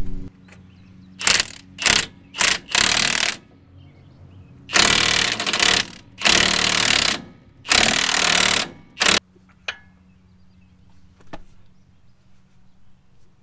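Impact wrench running in short bursts on the ball joint nuts of a Ford F250's front steering knuckle, loosening them: a few brief blips, then four bursts of about a second each, and a last blip about nine seconds in.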